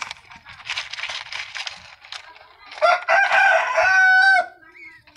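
Young albino ringneck dove fluttering its wings in quick flaps as it begs to be fed. About three seconds in there is a loud, drawn-out bird call lasting about a second and a half.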